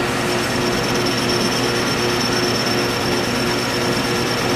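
Metal lathe running steadily as the tool takes a cut, with a thin high whine that starts just after the beginning and holds steady.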